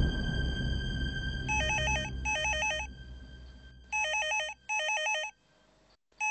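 Cordless landline telephone's electronic ringer warbling in double rings, two pairs of rings about two and a half seconds apart. Under the first pair, background music fades out.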